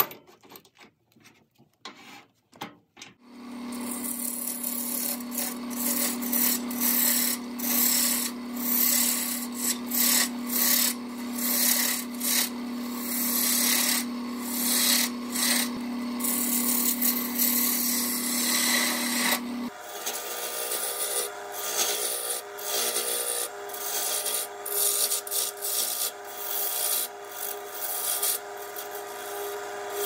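A few sharp clicks as a wooden blank is fitted into a lathe chuck, then about three seconds in the wood lathe starts and a turning gouge cuts the spinning blank: a steady motor hum under rough, continuous scraping and shaving. Near the two-thirds point the hum changes and the cutting goes on with a skew or parting chisel.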